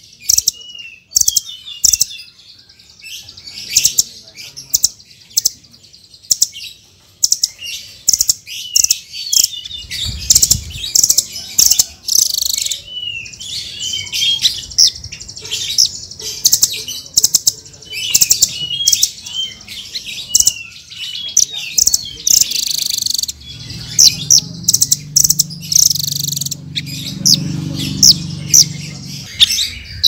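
Small songbirds chirping and twittering fast: many short high notes and quick rising and falling trills, with sharp clicking notes among them. A low hum sits beneath the calls for several seconds near the end.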